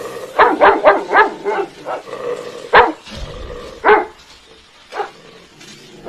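Dog barking: a quick run of five barks, then three more single barks about a second apart.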